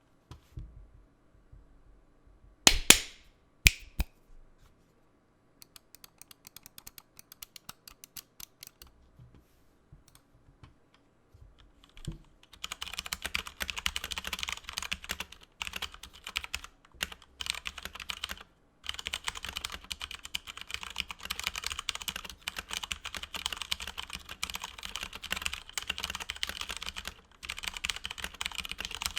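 Cooler Master MK730 mechanical keyboard with Cherry MX Brown switches: a few sharp, louder knocks near the start, then scattered light keystrokes, then steady fast typing from about twelve seconds in, with a couple of brief pauses.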